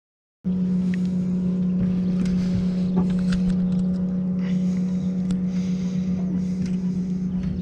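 After a brief silence, a boat motor runs with a steady low hum, with scattered light clicks and knocks from the boat over it.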